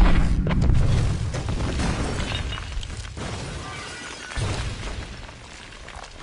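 Building explosions: a sudden loud blast with a deep rumble and shattering glass and debris, then a second blast about four and a half seconds in, fading away after it.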